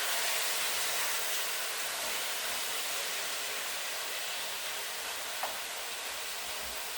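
Bok choy and shiitake mushrooms with garlic sizzling steadily in hot vegetable oil in a stir-fry pan, with one small click about five seconds in.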